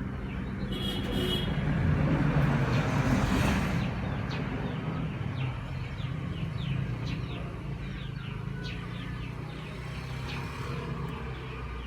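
A vehicle engine running steadily, swelling louder for a couple of seconds near the start, with birds chirping.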